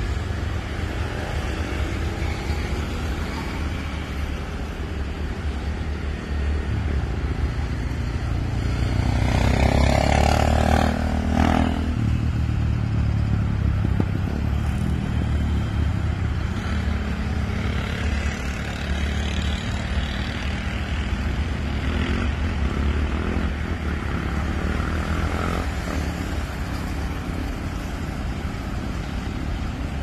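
Road traffic: cars and motorcycles passing, over a steady low rumble of engines and tyres. About ten seconds in, one vehicle passes close and is the loudest thing heard.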